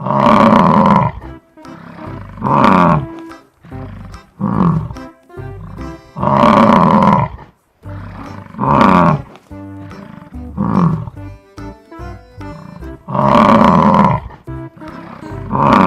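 Bison bellowing: a string of deep, loud roaring calls, long ones about every six and a half seconds with shorter calls that fall in pitch in between, over light background music.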